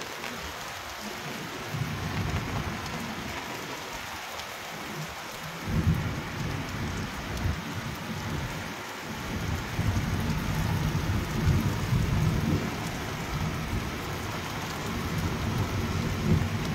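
Heavy rain pouring onto a flat concrete rooftop with standing water: a steady hiss of rain on water and concrete. From about six seconds in, a low rumble swells and fades under it.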